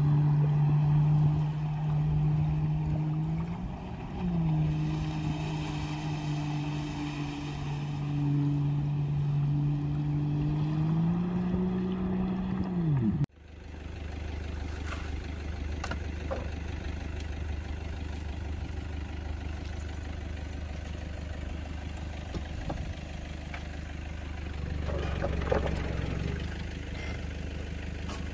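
A jet ski's engine running steadily as it crosses a lake, dipping in pitch once and rising again before cutting off abruptly. After that, a vehicle's engine idling low, with a few sharp clicks and a brief louder stretch near the end, while recovery traction boards are set under the wheel.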